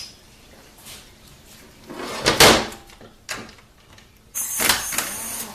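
Metal transmission parts being handled on a workbench: a short clatter about two seconds in, a single click, then a longer scraping sound near the end.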